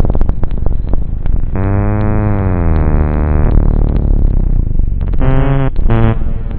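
Sampled sound effects cut up and pitched into music: a fast run of clicks, then a long buzzy tone that dips in pitch for about two seconds, then short pitched stabs near the end, over a steady low rumble.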